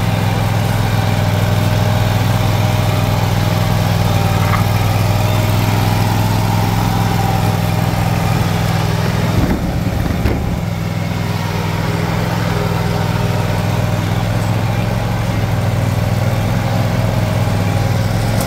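Engine of a walk-behind commercial mower running steadily while it pushes leaves with a front-mounted leaf blade plow. A couple of brief bumps come about halfway through, after which the engine is slightly quieter.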